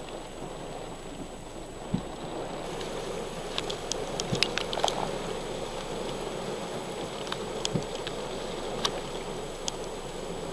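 Heavy rain pouring steadily in gusting wind, with scattered sharp ticks, most of them about halfway through.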